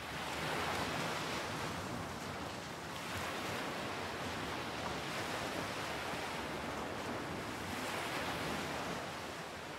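Waves washing on a shore: a steady wash of surf that swells and eases every few seconds.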